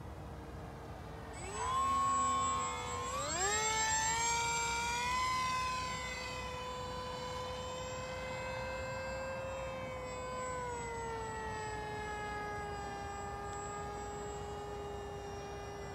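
RC model plane's 2830 brushless electric motor and 7x4.5 pusher propeller whining in flight. The pitch climbs as the throttle is opened, about one and a half and three seconds in, then holds steady and eases down a little after about ten seconds.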